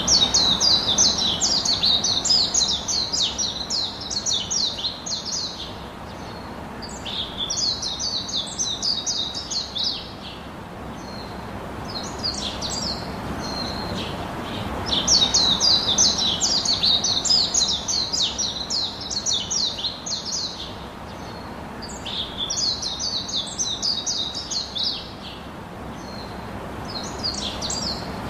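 Birdsong: phrases of rapid, high chirping notes a few seconds long, recurring every few seconds, with the longest and loudest runs at the start and about halfway through.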